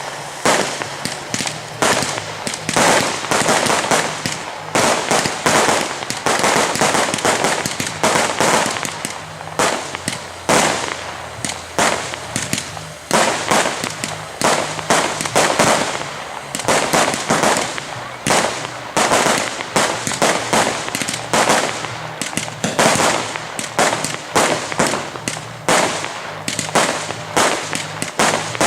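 Aerial fireworks going off in a dense, continuous barrage: many bangs and crackles in quick succession with no let-up.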